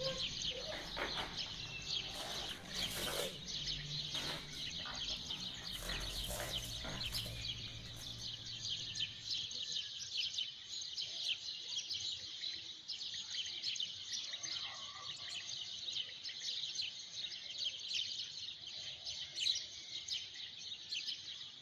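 A chorus of small birds chirping continuously, many short high chirps overlapping. A low rumble underneath dies away about nine seconds in.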